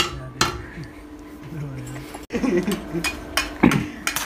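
Steel tractor silencer pipe clinking and knocking against metal as it is set in place for welding: several sharp metallic knocks, one at the start and a cluster about three and a half seconds in.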